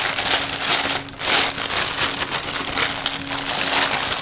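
Clear plastic bag crinkling continuously as it is pulled and crumpled off a boxed camera unit by hand, with a brief lull about a second in.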